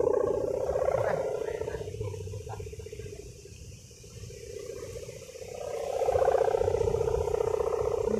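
Sendaren kite hummer, of the gler brewok and desel kinds, droning aloft with a steady buzzing tone. It fades about two seconds in and swells back up about six seconds in.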